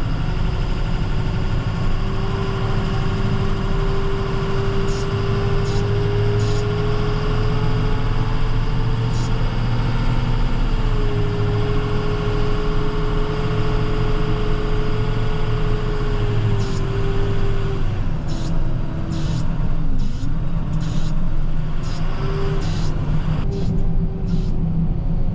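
Chevrolet Silverado 6500 plow truck's engine running under load, heard from inside the cab. A steady whine rides over it, wavers and breaks up near the end, with scattered light ticks.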